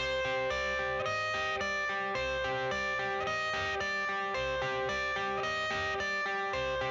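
Background music: a quiet guitar intro of picked notes in a repeating pattern, at an even level.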